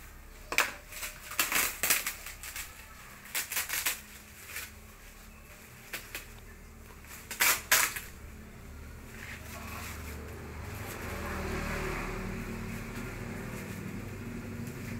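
Paper and tape crackling and tearing in quick bursts as the yellow paper wrapping is pulled off a packed plant, loudest in the first few seconds and again once about halfway through. A low steady rumble builds up in the second half.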